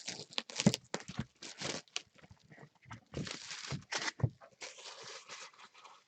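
Crinkling and rustling of a sealed box's plastic wrap being handled, with a few short knocks among it.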